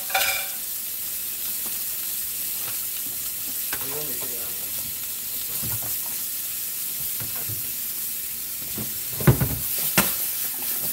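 Carrots sizzling in butter in a stainless steel pan on a hot electric stovetop, a steady hiss. Near the end the pan is shifted on the glass cooktop, with two sharp knocks about a second apart.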